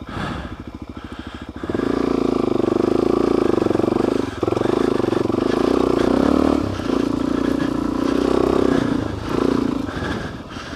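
Suzuki DR-Z400S single-cylinder four-stroke dirt bike engine pulsing at low revs, then opened up under load a little under two seconds in and running hard through sand, its note dipping briefly a few times.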